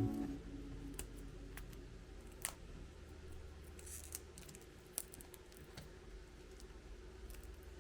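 Faint scattered clicks and light scrapes of small objects being handled in a quiet small room, with a short hissy scrape about four seconds in. A guitar-backed music track fades out at the very start.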